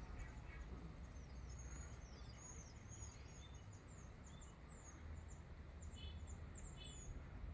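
Faint outdoor birdsong: a bird gives a quick series of short, high chirps, with two brief buzzy notes near the end, over a low steady rumble.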